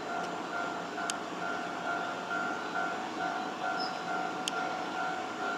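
Yoro Railway 620 series electric train running slowly toward the listener, with a steady rumble, an occasional sharp click from the wheels, and a steady pulsing tone.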